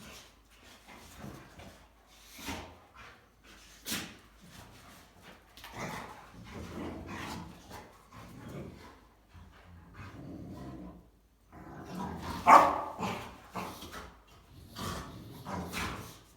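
Rottweilers barking and making other short, irregular vocal noises, with one loud bark about twelve and a half seconds in.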